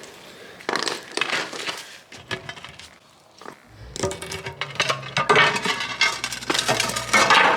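Metal clinking and scraping, with a few separate clinks at first and a denser run of clanks and scrapes from about four seconds in, as a metal drain manhole cover is handled.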